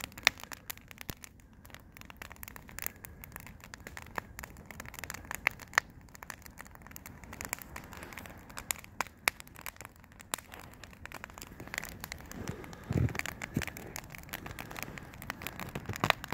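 Campfire of stacked logs burning, crackling and popping with irregular sharp snaps over a low steady hiss.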